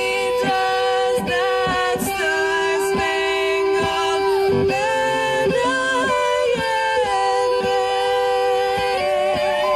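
Live rock band: a woman singing long held notes into a microphone, backed by electric guitar and drums.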